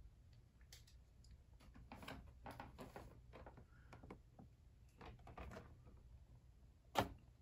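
Faint clicks and rustles of plastic action figures and packaging being handled, with one sharper click shortly before the end.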